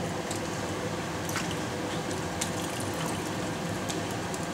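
Wet pieces of food lifted out of a tub of dark liquid and dropped into a stainless steel pot: quiet dripping and handling with a few faint clicks over steady background noise.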